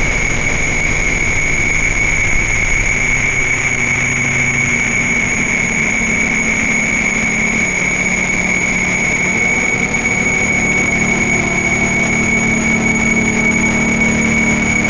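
DIY noise synthesizers playing a dense, steady electronic drone: a hiss of noise with a high whistling tone held throughout, and low droning tones that shift pitch a few times. The synths run through delay, reverb and a low-pass filter.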